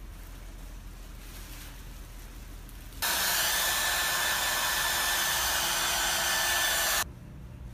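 A hair dryer blowing steadily on a newborn monkey wrapped in a towel after its warming bath. It starts suddenly about three seconds in and cuts off suddenly near the end.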